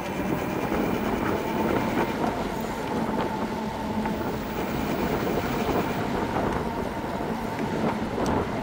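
Eahora Romeo 2 electric bike's hub motor running while riding: a steady low hum with a higher steady whine over road and wind noise. This is the noise the owner is worried about, coming from the front wheel motor and at times from the rear.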